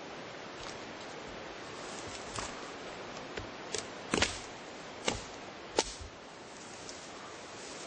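Dry dead twigs snapped by hand: a run of about six sharp cracks, the loudest about four seconds in, over a steady hiss.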